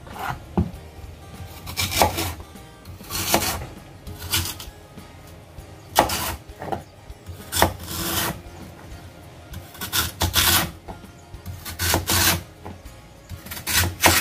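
Kitchen knife slicing thin rounds off a raw lotus root and meeting the cutting board, about a dozen cuts at roughly one a second.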